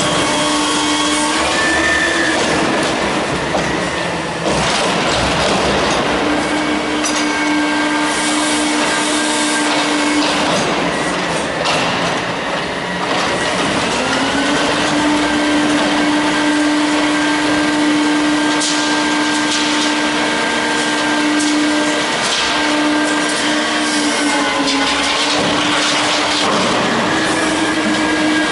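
Front-loader garbage truck's hydraulics working at raised engine revs, a steady whining hum that drops and rises in pitch several times as the packer panel compacts cardboard in the hopper. Clattering and knocking a few seconds in.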